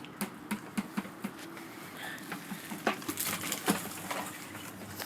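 Irregular light knocks and clicks as an Environment One grinder pump is lowered on its rope back into its station.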